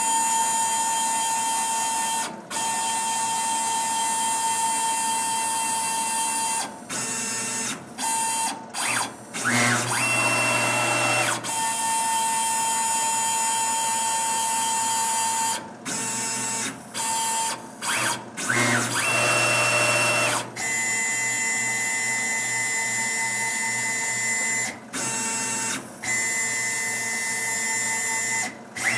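Tormach PCNC 770 mill's stepper-driven axes whining as the table moves through an automatic probing cycle that finds the centre of the box. The pitch shifts from one move to the next, and the sound cuts out briefly many times as the axes stop and reverse.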